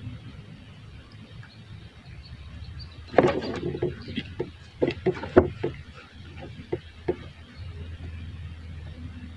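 A series of sharp wooden knocks and clatter against the hull of a wooden outrigger canoe as a handline is hauled in by hand, bunched in the middle. A steady low rumble sets in near the end.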